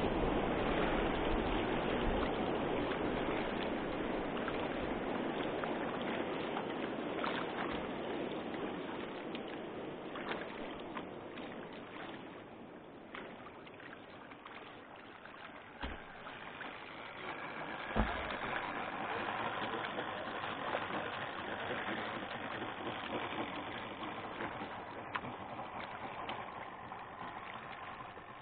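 Steady rush of flowing river water that slowly fades, broken by two sharp knocks a little past halfway.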